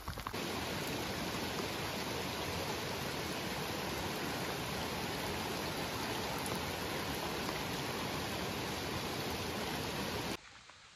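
Small mountain creek running over rocks beneath a plank footbridge: a steady, even rush of water that starts a moment in and cuts off abruptly near the end.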